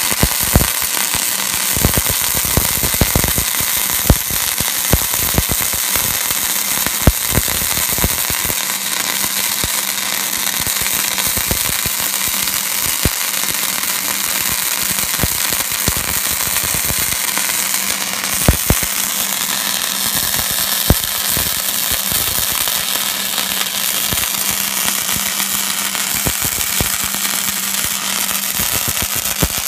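Hobart Handler 140 wire-feed welder running flux-cored wire on 110 volts: a continuous arc crackle with frequent sharp spatter pops over a steady low hum.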